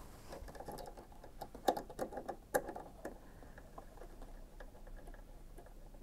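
Small metal clicks and taps as an embroidery foot is fitted onto a Brother M280D sewing machine and its screw is tightened with a small screwdriver. The clicks are busiest in the first three seconds and sparser after.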